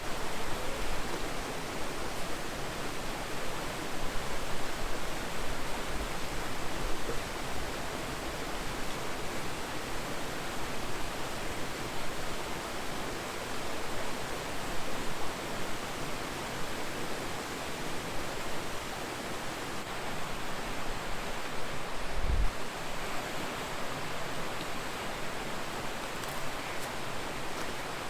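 Steady rush of flowing creek water, an even hiss without let-up, with a couple of brief low thumps about three-quarters of the way through.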